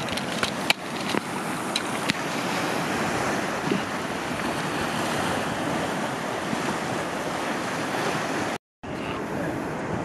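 Sea surf breaking and washing over rocks and a sandy shore, a steady rushing wash, with wind buffeting the microphone. A few light clicks in the first couple of seconds, and the sound drops out briefly near the end.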